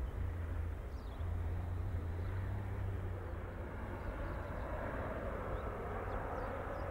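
Airbus A330-300 jet engines rumbling steadily as the airliner rolls out on the runway after touchdown.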